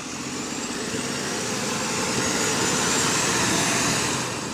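Double-decker bus engine running as the bus pulls away close by, with a faint high whine climbing slightly in pitch. The sound builds to a peak about three and a half seconds in, then starts to fade as the bus moves off.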